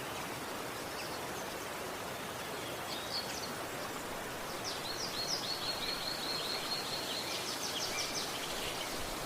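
Steady rush of river water. Small birds call over it: a few high chirps about three seconds in, then a fast run of repeated chirping notes, about five a second, from about five seconds to near the end.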